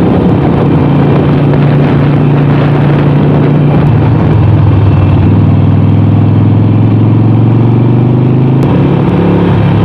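Harley-Davidson Sportster 48's V-twin engine running under way. Its note climbs steadily for a few seconds as the bike accelerates, then drops suddenly near the end as it shifts up a gear.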